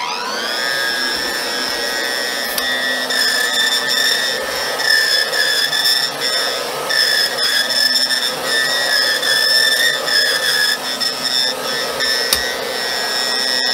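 Gtech Air Ram Mk1 cordless stick vacuum switching on and spinning up, then running with a steady high whine as it is pushed over carpet. It starts winding down right at the end. Its brush-roll drive cog is stripped.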